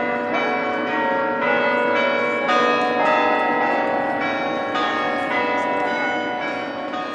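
Bells ringing in the Duke Chapel tower, most likely its carillon being played: new notes struck about twice a second over the lingering ring of earlier ones.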